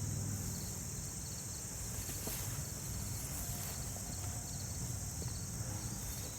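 Steady high-pitched chorus of insects over a low, even rumble.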